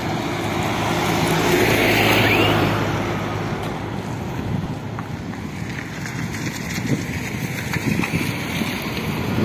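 Passing road traffic: a motor vehicle goes by, loudest about two seconds in, over a steady traffic din, with wind buffeting the microphone.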